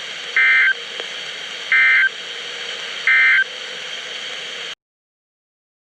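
NOAA Weather Radio receiver playing the Emergency Alert System end-of-message code: three short, shrill digital data bursts about 1.4 s apart over steady radio hiss, marking the end of the alert test. The audio cuts off abruptly about 4.7 s in.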